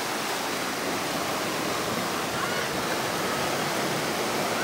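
River rapids rushing steadily over rocks, an even whitewater rush.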